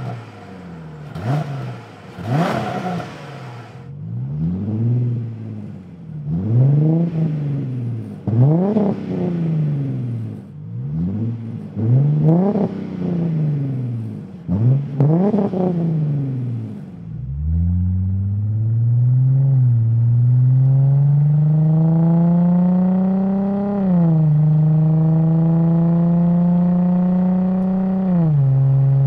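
2005-2009 Ford Mustang's 4.0-litre V6 through a stainless Nxt Step Performance axle-back exhaust with a deep tone: revved in about seven quick blips, each rising and falling in pitch. From about 17 s it pulls under steady acceleration, pitch climbing, with a drop near 24 s and again near 28 s as it shifts up.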